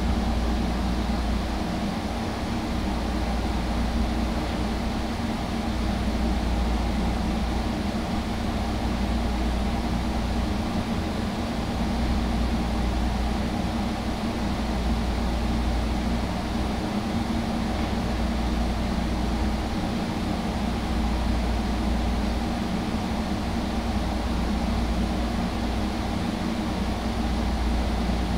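Portable air conditioner running: a steady low hum and an even hiss of moving air.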